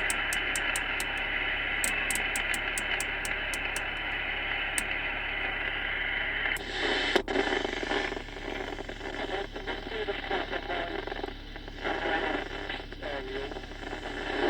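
TriStar 790DX CB radio's speaker hissing with steady band noise, with faint regular ticking in the first few seconds; about halfway through, a weak station starts breaking through the static in choppy, fading fragments.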